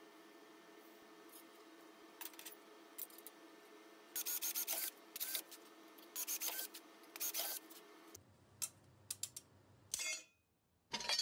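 Cordless drill boring small holes through a steel plate in four short bursts of about half a second each, with a few light metallic clicks before and after.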